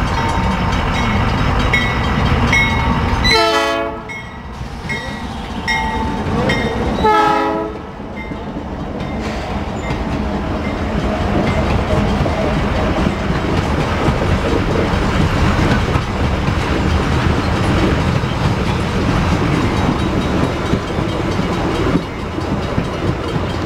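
Diesel locomotive horn giving two short, out-of-tune blasts, a few seconds apart, over the rumble of a slow loaded coal train. Then a steady run of heavy wheel clatter and rumble as the coal hopper cars roll past.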